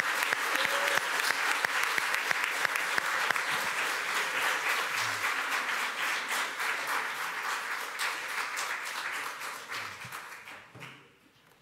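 Congregation applauding, a steady clatter of many hands that fades and dies away near the end.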